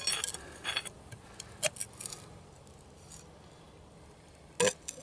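Sharp metal clicks and clinks from the rocker arms and valve springs of a Packard 374 V8 as a stuck exhaust valve is worked free by hand: a handful of separate taps, some ringing briefly, the loudest near the end.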